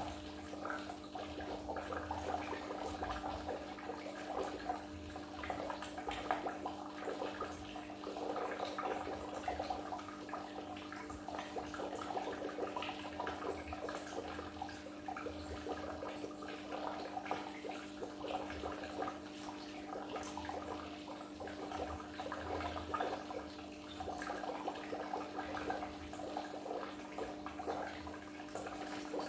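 Water in a goldfish aquarium bubbling and gurgling continuously, as from the filter outflow and aeration, with a steady low hum underneath.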